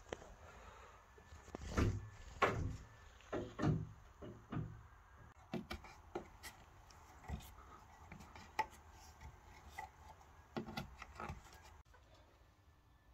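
Irregular knocks, clicks and rubbing from hands-on rigging work: rope being hooked onto metal screw hooks in a wooden post and a metal hanging hook being handled. The heaviest knocks come in the first five seconds.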